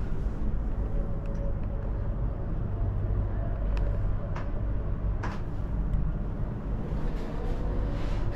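Steady low rumble inside an Emirates Air Line cable-car gondola in motion, with a few faint clicks around the middle.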